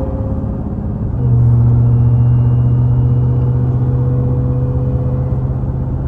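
Dodge Challenger/Charger SRT Hellcat's supercharged 6.2-litre V8 heard from inside the cabin while the car accelerates at highway speed. It is a steady, even drone that gets louder about a second in and then holds.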